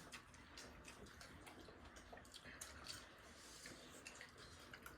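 Near silence with faint, scattered clicks and small noises from people eating momos.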